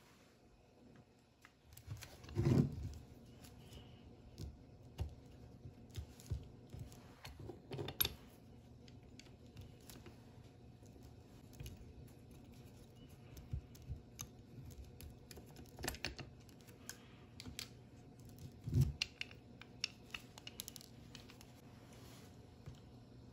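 Small clicks, taps and scraping from a miniature tube cutter and bench vise being handled while a thin tube is cut, with two heavier dull knocks, one a couple of seconds in and one later on.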